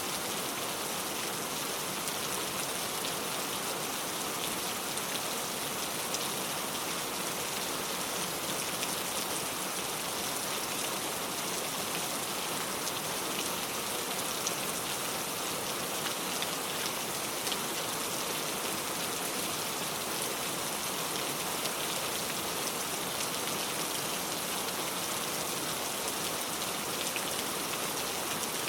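Steady rain falling, a dense patter of drops, even in level throughout.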